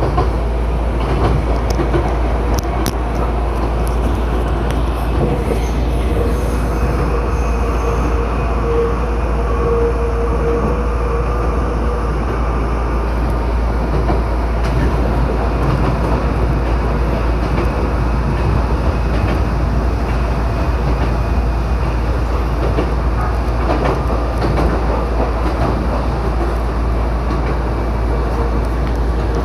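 Chichibu Railway electric train running, a steady rumble of wheels on track, with a thin whine held for several seconds about five seconds in.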